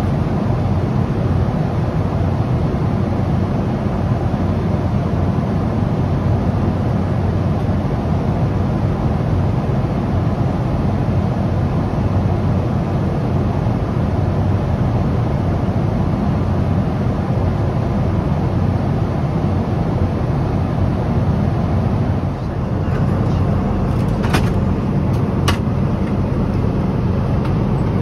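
Steady low roar of a Boeing 777-200's cabin at cruise altitude: engine and airflow noise. Near the end, a few sharp clinks.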